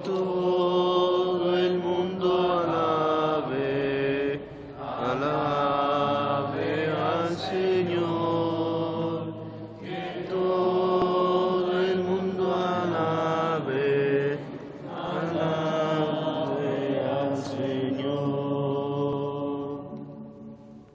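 Voices singing a slow, repetitive Taizé chant in long held phrases, about four of them, with short breaks for breath between, over a steady low accompaniment.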